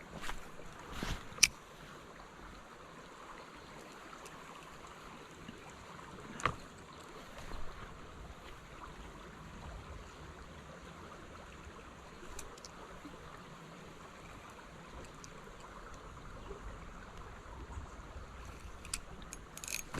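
Creek water running steadily, with a few sharp clicks near the start and again around six seconds in.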